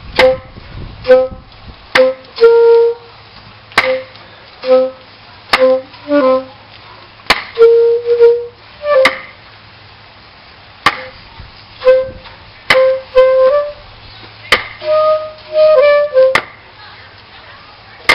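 Music: a simple tune of short notes on a flute-like woodwind instrument, with sharp clicks between the notes and a brief pause partway through.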